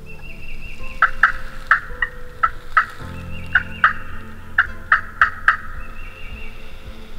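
Male wild turkey gobbling: a series of sharp pulses from about one second in to about five and a half seconds in.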